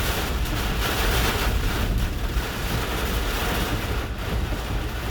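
Hurricane eyewall winds gusting to about 80 or 90 mph, heard from inside a vehicle being buffeted by them: a dense, steady rush of wind noise that swells and eases slightly with the gusts.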